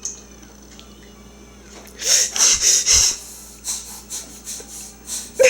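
A baby making a funny noise with his breath: a quick run of hissy, blowing puffs about two seconds in, followed by a few softer puffs.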